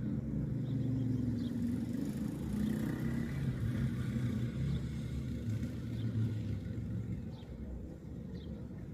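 A motor vehicle's engine rumbling close by, swelling about a second in and easing off after about seven seconds. Faint short sparrow chirps over it.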